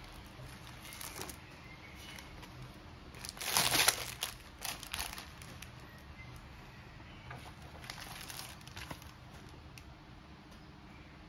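Bubble wrap and plastic packaging crinkling and rustling as it is handled and a tablet case is pulled out of it, in short bursts: the loudest about three and a half seconds in, smaller ones around five seconds and again around eight to nine seconds.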